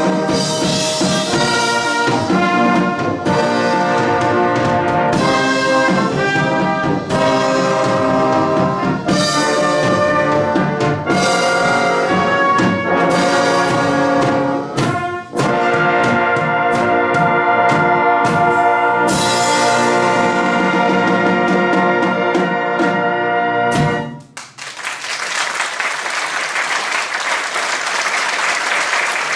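Brass band playing the closing bars of a piece, ending on a long held chord. About five seconds before the end, audience applause breaks out.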